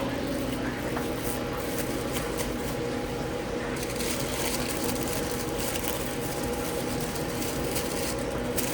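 Steady hum of running kitchen equipment, with a few light clicks and clatters of kitchen work.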